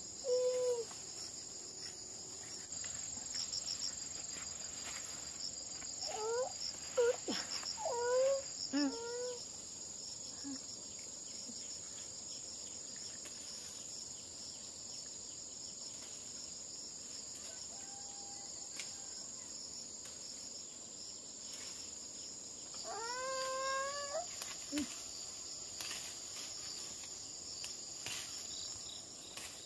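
Steady high-pitched chirring of insects, with a small child's short whining cries a few seconds in and again about three-quarters of the way through. Faint rustling of leaves comes near the end as greens are picked by hand.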